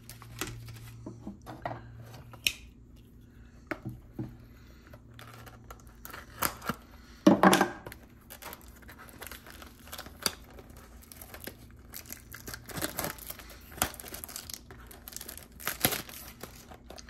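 Trading card packaging being torn open and crinkled by hand, with scattered small handling clicks. The loudest tear comes about seven seconds in.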